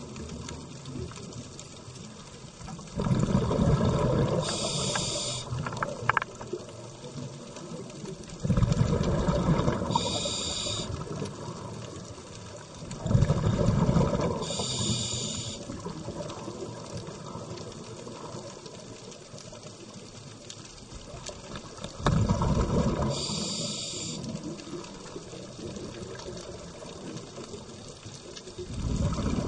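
A scuba diver breathing through a regulator underwater: each breath is a loud rush of bubbles followed by a shorter high hiss from the regulator. Five breaths come roughly every five seconds, with a longer pause midway, over a steady faint underwater hiss.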